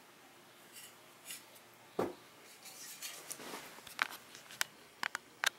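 Objects being knocked about and handled: one dull thump about two seconds in, then rustling and a quick run of sharp clicks and taps.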